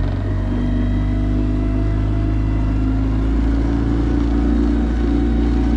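Boat's outboard motor running steadily at cruising speed, pushing the boat across the lake.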